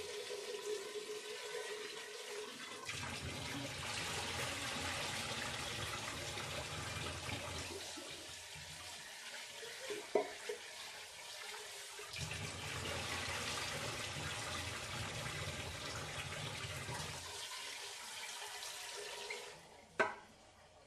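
Fish curry boiling in an open pan: a steady bubbling hiss of gravy and oil that dies down near the end, with a couple of faint clicks.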